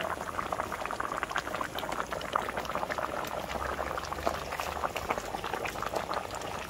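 Broth at a rolling boil in a metal pot over a wood fire: a dense, steady bubbling with many small pops.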